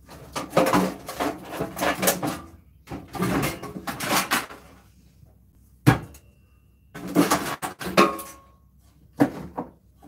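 Clattering and knocking of stripped metal microwave parts and a cardboard box being handled and set down on a workbench, in several bursts, with one sharp knock about six seconds in.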